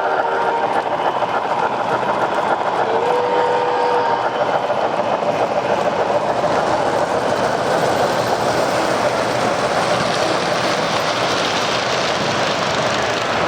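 O-gauge model trains running on three-rail track, a steady dense rattle from wheels and motors. A short steady tone, like a horn blast, sounds about three seconds in.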